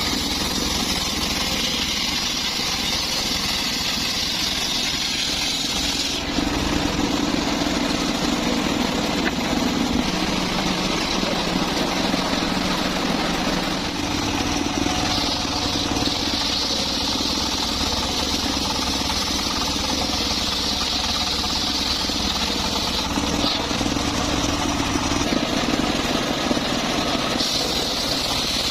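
Circular sawmill running steadily while cutting mahogany, a constant machine drone. The high hiss of the blade in the wood swells and fades in stretches of several seconds.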